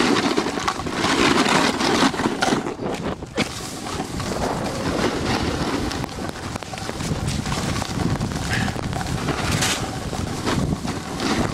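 Wind rushing over the microphone of a camera carried by a snowboarder riding downhill: a steady noisy rush with a few short knocks.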